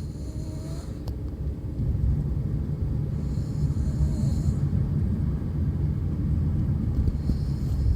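A person snoring, with breaths recurring about every three and a half seconds over a steady low rumble.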